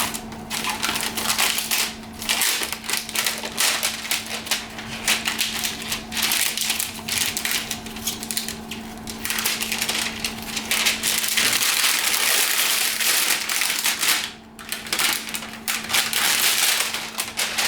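Plastic packaging crinkling and rustling, handled almost continuously with dense crackles, during an unboxing.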